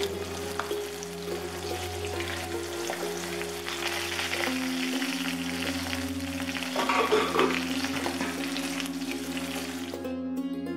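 Fish pieces sizzling and crackling in hot oil in a wok, with a wooden spatula scraping against the pan and turning them, loudest about seven seconds in.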